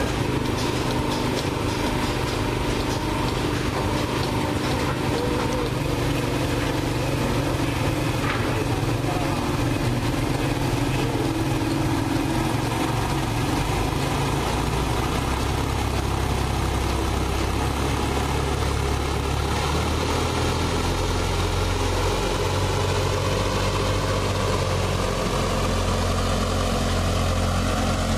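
Petrol engine of a construction material hoist running steadily as it winches a loaded cage of blocks upward. Its low note changes about halfway through, around when the cage is off the ground and rising.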